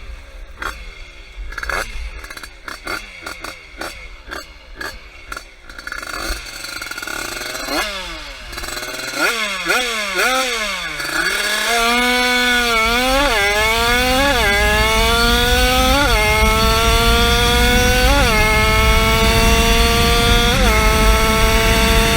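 50cc two-stroke motorcycle engine running unevenly with crackling pops, then revved up and down a few times, then pulling hard through the gears: its pitch climbs and drops back at each of about five gear changes.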